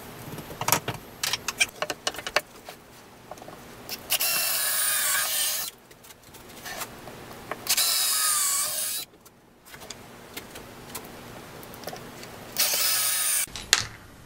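A run of sharp knocks on wood, then a cordless drill driving three screws into the wood, each run lasting one to two seconds with the motor's pitch wavering as the screw goes in.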